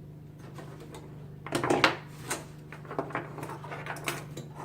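Old knives clattering and clicking as they are set down and pushed together on a tabletop: a cluster of knocks about a second and a half in, then several lighter clicks, over a steady low hum.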